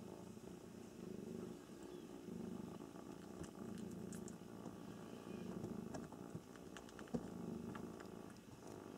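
Domestic cat purring, the purr swelling and fading with each breath about once a second. A few faint clicks and one sharp tick about seven seconds in.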